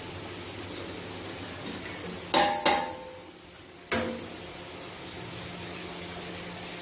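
Steel tray clanking against a large metal cooking pot as spices and chopped vegetables are tipped in: two ringing clanks close together a little past two seconds in and a third at about four seconds, over a steady low hum.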